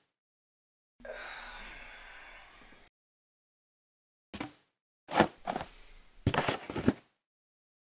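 A long breathy sigh fading out over about two seconds, then a run of short thuds and knocks starting about four seconds in.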